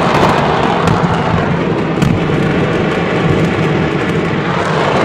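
A stockpile of fireworks exploding en masse: a dense, continuous crackle of many overlapping bangs and pops over a low rumble, with a sharper bang about two seconds in.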